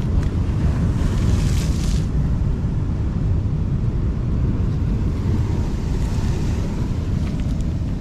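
Wind buffeting the microphone in a steady low rumble, with sea surf hissing over it, loudest between one and two seconds in.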